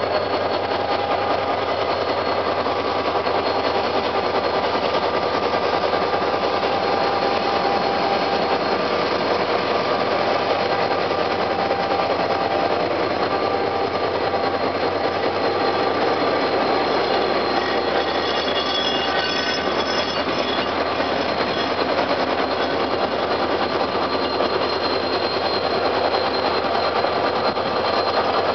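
EMD diesel-electric locomotives pulling a passenger train away from a standstill, the engines running steadily under load as the locomotives and then the coaches roll past on the rails.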